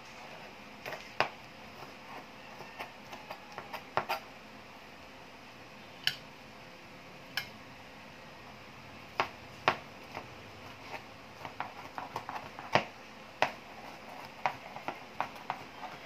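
Kitchen knife chopping fried chicken liver on a plastic cutting board: irregular sharp knocks of the blade striking the board, some in quick runs and some single, with short pauses between.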